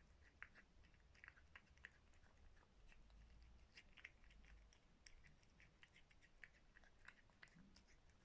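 Cat eating flaked fish from a bowl: faint, irregular wet chewing clicks, a few a second.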